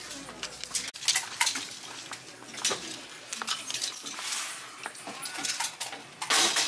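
Clothes hangers clicking and scraping along a metal clothing rail as garments are pushed aside: a run of light clicks, with a louder clatter about six seconds in.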